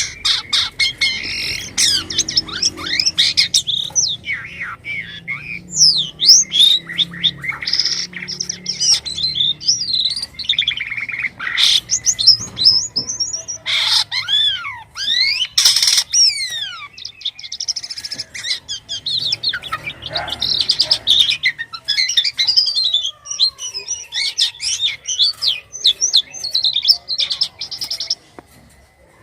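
A jalak kapas myna singing on and on: a jumble of whistles, chirps, quick rising and falling notes and harsh calls, with barely a pause.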